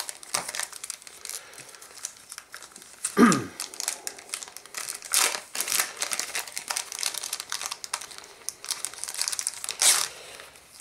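Clear plastic packaging crinkling and rustling in bursts as game cards are taken out of their bag, with a louder brief crackle that drops in pitch about three seconds in.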